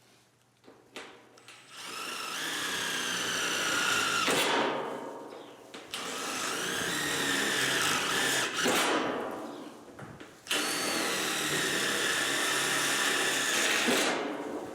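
Power drill with a 1/4-inch bit boring holes through a sheet-metal roof skin: three holes in a row, each a few seconds of steady high whine, with short pauses between them.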